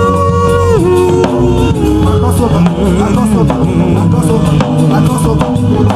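Live church praise music with a steady drum and bass groove, and a voice singing over it, holding one long note at the start and then shorter phrases.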